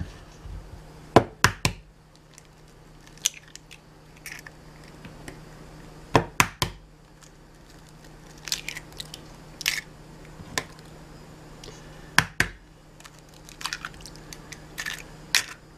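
Eggs being cracked one by one on the rim of a stainless steel mixing bowl: sharp taps and cracks, often two or three in quick succession, with shells set down on the counter between them. A faint low hum runs underneath.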